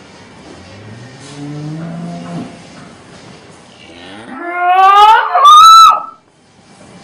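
Cow mooing twice: a low moo rising in pitch about a second in, then a much louder call near the middle that glides steeply up to a high pitch before cutting off suddenly.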